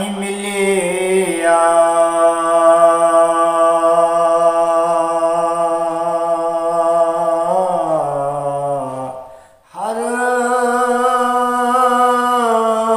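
A man singing a Sufi devotional kalam unaccompanied, in very long held notes: one note held for about six seconds, then a slide down, a short break for breath, and another long held note.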